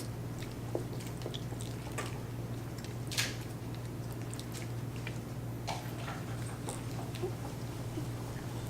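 Eating sounds: scattered small clicks and crackles of chewing and handling food, one a little louder about three seconds in, over a steady low hum.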